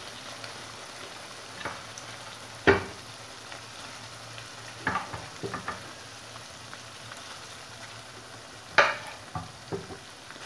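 Chicken tikka pieces sizzling in masala gravy in a frying pan, with a spatula stirring and knocking against the pan: a sharp knock about two and a half seconds in, a few light clatters midway, and another sharp knock near the end.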